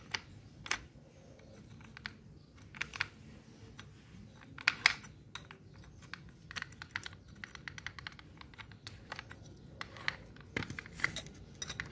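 Irregular small metallic clicks and clinks of a flat spanner and the spindle lock nut and flange on an old Makita angle grinder's gear head, as the spindle is held locked and the nut is loosened and turned off. The clicks get denser in the second half.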